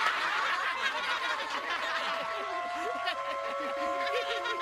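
A studio audience of children laughing together, with held musical notes coming in about two seconds in.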